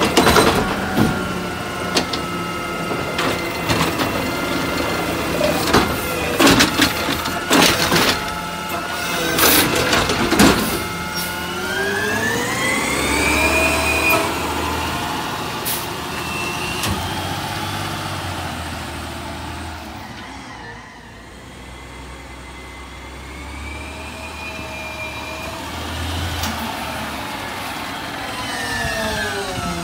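CNG Peterbilt 520 garbage truck with a McNeilus ZR automated side-loader at work: a run of knocks and bangs as the lifted cart is shaken out and its trash drops into the hopper, then the truck's engine revving up and down as the hydraulic arm is worked, the pitch rising about a dozen seconds in. Near the end the engine rises again as the truck pulls away.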